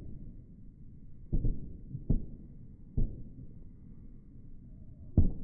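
Aerial firework shells bursting in the distance, heard as a series of deep, muffled booms in slowed-down slow-motion audio: a quick double boom about a second and a half in, then single booms, with the loudest near the end.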